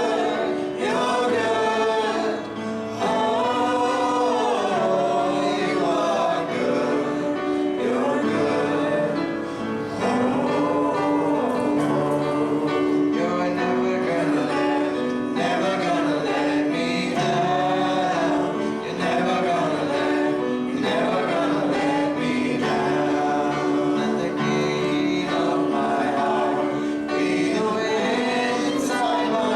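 Congregation or worship team singing a gospel hymn with instrumental accompaniment of sustained chords.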